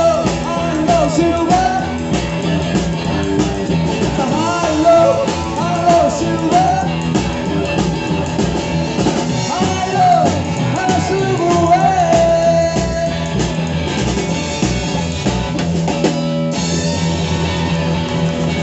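Live rock and roll band playing: electric guitar and drums, with singing.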